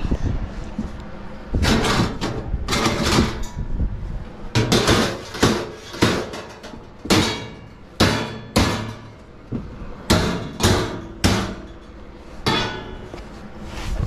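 Hammer striking sheet metal in a series of irregular blows, about one to two a second, each with a brief ring: the tabs of a sheet-metal duct collar being hammered over to form a lip at a floor opening.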